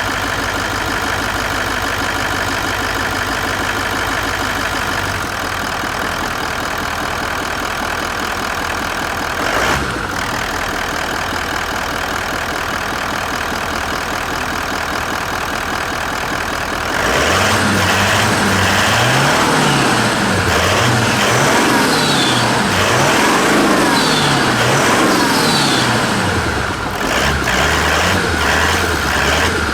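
Toyota Land Cruiser 200's 4.5-litre twin-turbo V8 diesel (D-4D) idling steadily, with a short blip of the throttle about a third of the way in. Past the halfway mark it is revved up and down repeatedly for about ten seconds, then given a few quick blips and settles back to idle.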